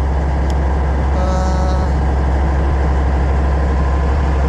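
Boat engine running steadily with a deep low drone, and a brief faint tone about a second in.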